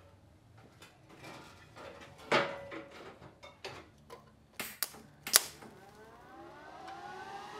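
Scattered metal clunks and clicks from parts being handled and fitted, loudest about two and five seconds in. From about six seconds in, a rising siren-like tone builds steadily.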